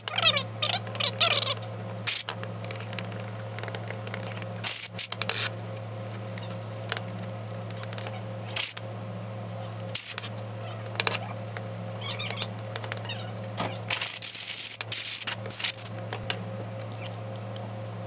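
Hand work on a Cummins 6BTA engine's belt idler pulley on a galvanized steel worktop: a small brush scrubs over it and the pulley shifts on the metal, giving scrapes, short squeaks in the first second and again past the middle, and several sharp knocks. A steady low hum runs underneath.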